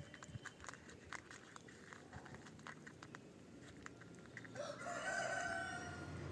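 A cat crunching dry kibble in faint little clicks, then about four and a half seconds in a single drawn-out animal call lasting over a second, the loudest sound here.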